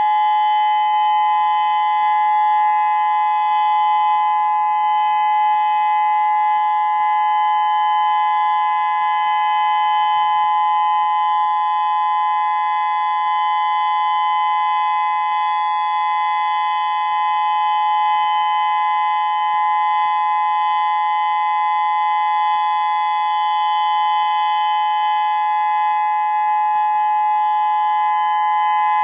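Federal Signal Modulator 6024 electronic warning siren sounding a steady tone, several pitches held together and level, without rising or falling.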